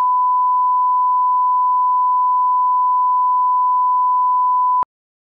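A steady 1 kHz sine test tone, the line-up tone played with colour bars. It holds at one pitch and level, then cuts off sharply near the end.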